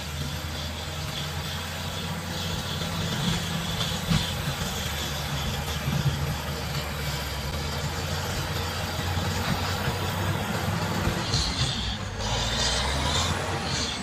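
Caterpillar D7G bulldozer's diesel engine running steadily, with a few short knocks and clanks from the machine at work and a change in the engine note near the end.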